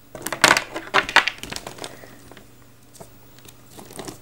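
Small plastic Gormiti figures clattering and rattling against each other as a hand rummages through a cardboard box full of them. A dense run of clicks in the first second and a half, then a few scattered clicks.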